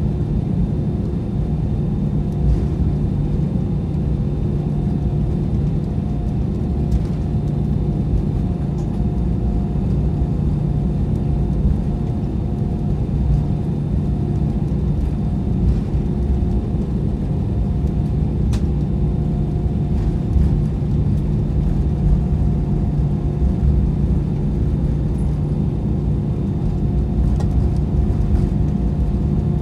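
Airbus A320 cabin noise while taxiing: a steady engine hum over the low rumble of the airframe rolling on concrete, with a few faint clicks.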